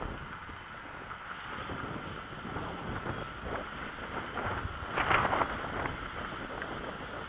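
Wind buffeting the camera's microphone during a bike ride, an uneven rushing rumble with a louder gust about five seconds in.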